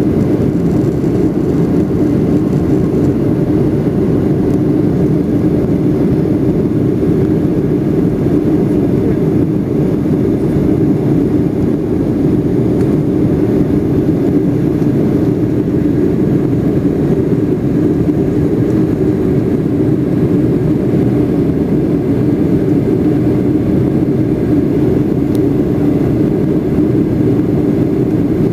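Jet airliner cabin noise: the engines and rushing air heard from inside the passenger cabin as a steady low drone with a faint hum, during the climb after takeoff.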